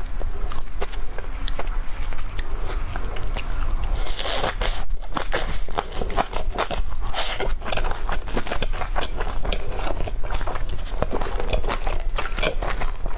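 Close-miked chewing of a Peking duck pancake roll with scallion and cucumber: wet mouth sounds full of quick, crisp crunches and clicks.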